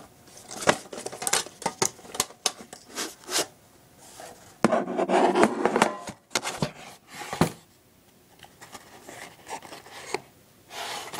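Cardboard packaging for a stock CPU cooler being handled close to the microphone: scattered clicks and knocks, with a stretch of rubbing and scraping about five seconds in.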